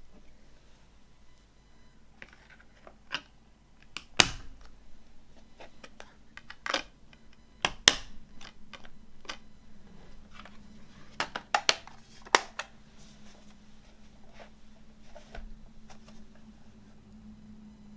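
Handling of a film box set's packaging and cases during unboxing: scattered clicks, taps and light rustles, with sharper knocks about four and eight seconds in and a quick run of clicks around eleven to twelve seconds.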